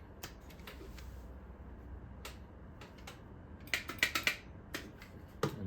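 Scattered small clicks and taps of Roomba parts being handled, with a quick run of clicks about four seconds in, over a low steady hum.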